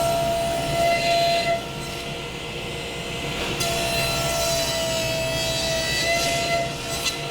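Power saw running with a steady whine while cutting wood to length and width; the pitch sags slightly for a couple of seconds around the middle.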